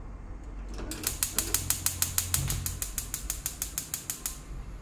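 Rapid, even clicking, about seven clicks a second, starting about a second in and stopping suddenly after some three and a half seconds.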